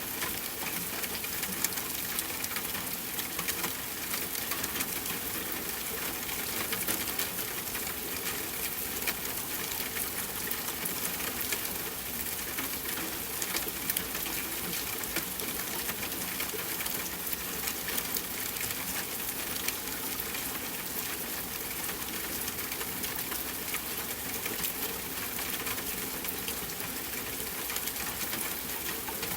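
Steady soft rainfall: a dense patter of small drops over an even hiss, holding at a constant level throughout.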